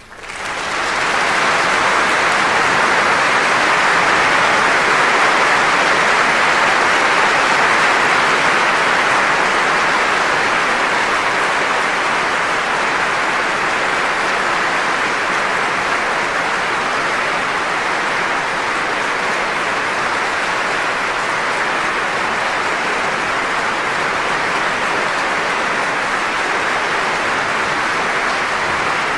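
Large concert-hall audience applauding: the clapping starts suddenly, swells to full within about a second, then holds steady, easing a little after the first ten seconds.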